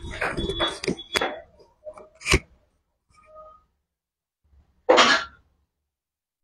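A person coughing: a few short coughs in the first second or so, a sharp click about two seconds in, then one more cough about five seconds in.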